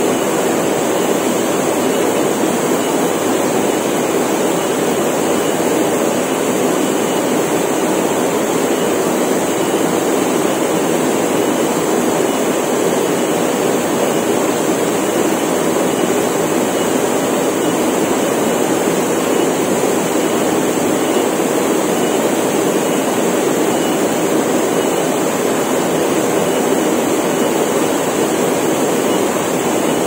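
Small waterfall plunging into a rock pool: a steady rush of falling water. A steady high-pitched drone of cicadas runs over it.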